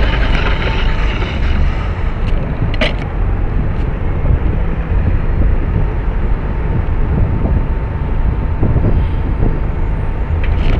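Urban road traffic noise heard from a moving bicycle, dominated by a heavy, fluctuating low rumble on the microphone, with a single sharp click about three seconds in.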